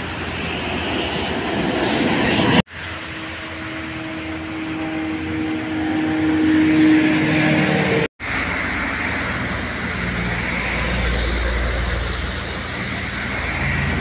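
Intercity buses and other traffic passing at speed on a highway: a steady rushing noise with a low engine rumble that swells as a bus goes by in the later part. The sound cuts out briefly twice.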